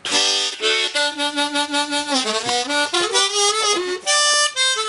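Hohner Marine Band 1896 diatonic harmonica in the key of G being played, just fitted with a flat comb and screws for airtightness: a quick run of notes and chords that starts suddenly, with a few notes sliding down in pitch.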